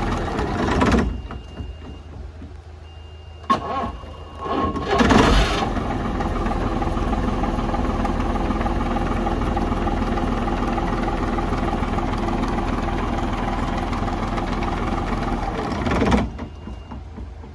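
An MCW Metrobus's rear-mounted diesel engine being started on its newly replaced starter motor. A click, then a short burst of cranking as the engine catches, and it runs steadily for about ten seconds before it stops suddenly near the end.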